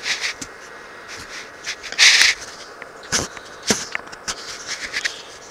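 Handling noise from a handheld camera: scattered clicks and rustles close to the microphone, with a short loud hiss about two seconds in and sharper knocks a little after three seconds.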